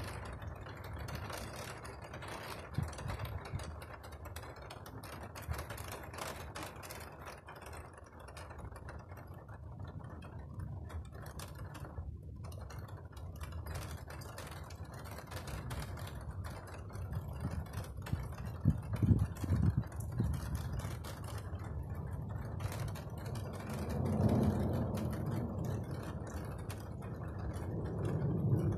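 Steady rain with dense, fine patter of drops, and low rolls of thunder swelling up, loudest about two-thirds of the way through and again near the end.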